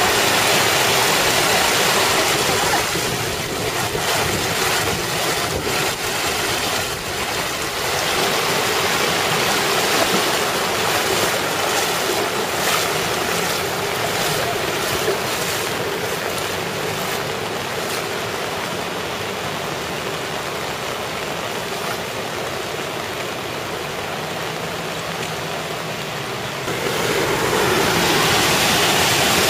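Steady rush of water in a downpour, with cars driving through floodwater on a flooded street and throwing up spray. The splashing is loudest at the start and again near the end.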